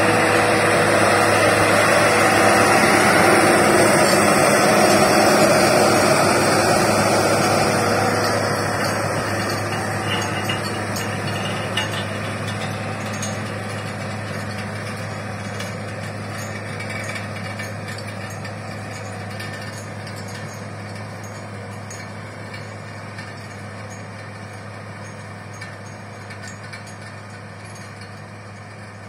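New Holland TS6 125 tractor's diesel engine running steadily under load while pulling a furrowing and anhydrous-ammonia applicator bar, the sound fading gradually after the first several seconds as the tractor draws away.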